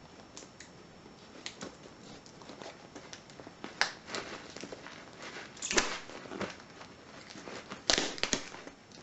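A cardboard parcel being opened by hand: packaging handled and pulled at, with scattered light clicks and a few sharper knocks, the loudest about six and eight seconds in.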